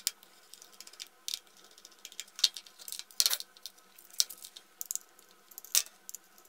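Irregular small clicks and taps from a screwdriver and the metal parts of a laptop hard drive being handled while it is taken apart.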